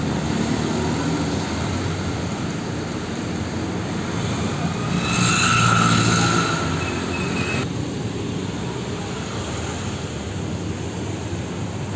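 Steady roadside traffic noise, with a vehicle passing louder about five to seven seconds in.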